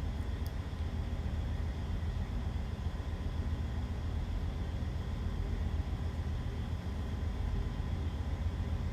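Steady low machinery hum with a faint steady whine above it, unchanging throughout.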